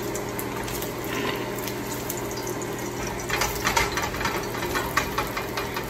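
Bacon frying in a pan of hot grease, sizzling steadily, with a run of sharp crackles and clicks from about three seconds in as a strip is lifted out with tongs.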